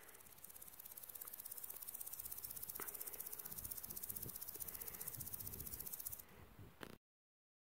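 Common green grasshopper stridulating: a faint, very high, rapidly pulsing buzz that swells over its first couple of seconds, holds steady, and stops about six seconds in.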